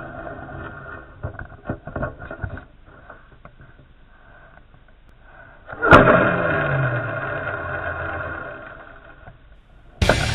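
Handling knocks and clicks on a fishing rod and reel, then a sharp knock as the rod is cast. The reel then gives a whirr that drops quickly in pitch and fades over about three seconds as line pays out. Music starts near the end.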